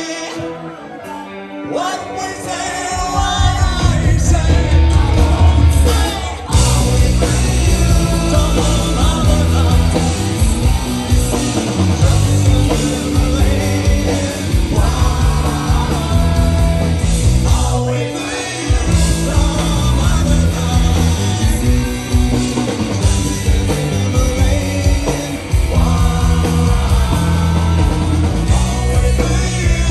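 Live rock band playing, a male lead singer over electric guitar, bass and drums, heard from the crowd. The first couple of seconds are quieter before the full band comes in loud.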